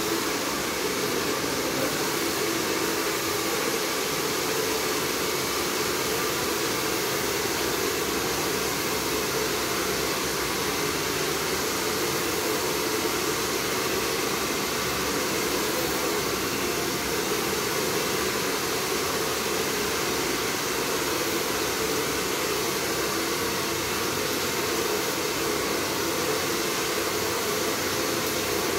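Steady rushing noise of moving air from a running blower, holding an even level throughout with no pauses.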